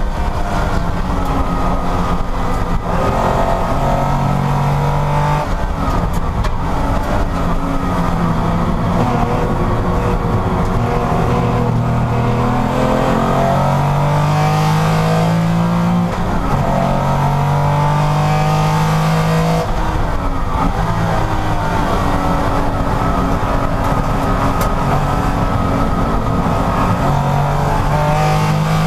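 Porsche race car's engine at racing speed, loud throughout. Its pitch climbs again and again as it accelerates, with sudden drops at gear changes and when slowing for corners.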